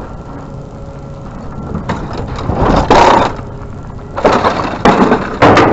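Metal scrap being handled: a run of five short clattering scrapes and knocks, the last few close together near the end.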